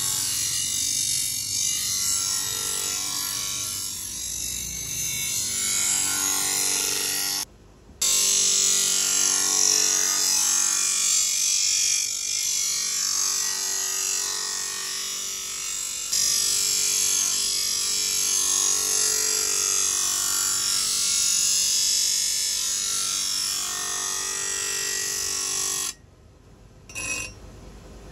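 Bench grinder wheel grinding a steel spade blade: a steady hissing grind over the motor's hum. It breaks off suddenly for a moment about a quarter of the way in and again near the end, when the blade comes off the wheel.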